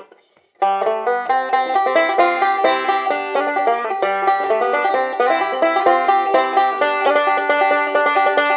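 2006 Nechville Phantom five-string banjo with a walnut body and a tunneled fifth string, fingerpicked in a fast, steady bluegrass stream of notes that starts about half a second in.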